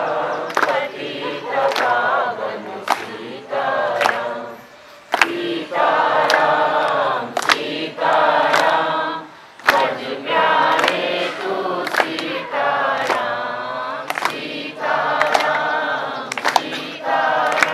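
A large group of children singing a prayer together in unison, in sung phrases with short breaks between them, while sharp taps keep time.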